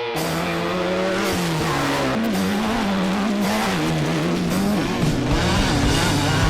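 Off-road race vehicle's engine revving hard, its pitch holding briefly, then rising and falling again and again as it drives.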